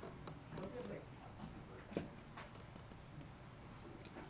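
Nylon zip tie being pulled tight through its locking head: quick runs of small ratcheting clicks, with one sharper click about two seconds in.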